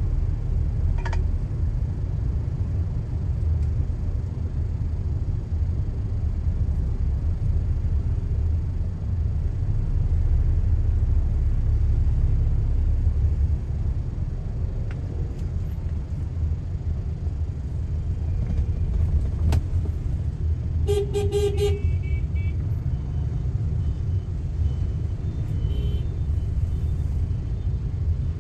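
Steady low rumble of a car's engine and road noise heard from inside the cabin in slow city traffic. A vehicle horn gives a few quick beeps about two-thirds of the way through, with a fainter toot a few seconds later.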